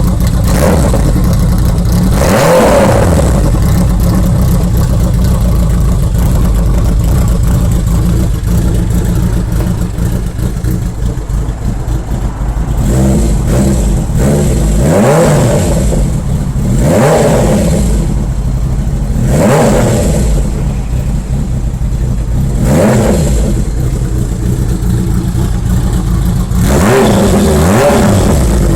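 Kawasaki Zephyr 1100's air-cooled inline-four breathing through a straight-pipe silencer, idling and blipped repeatedly: one rev a couple of seconds in, several more through the middle and another near the end, each rising in pitch and dropping back to idle.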